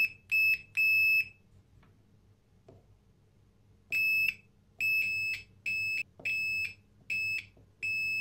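Digital multimeter's continuity beeper sounding in short, steady, high beeps: three in the first second, then after a gap six more, some longer, as the probes make contact. The beeps across the coil windings show continuity where there should be none, a short circuit between a few windings of the old doorbell's electromagnet coil.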